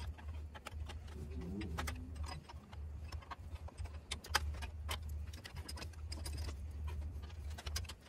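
A 9/16 open-end wrench clicking and ticking against the bolts of a cast-iron Bell & Gossett 100 series circulator pump as they are worked loose. Scattered metallic ticks over a steady low hum.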